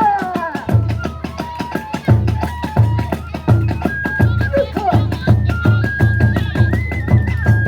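Kagura festival music: a large drum beats a steady rhythm under dense, rapid percussion strikes, while a bamboo transverse flute holds high notes and steps between them.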